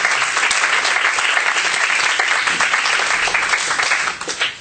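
Audience applauding, dying away with a few last claps near the end.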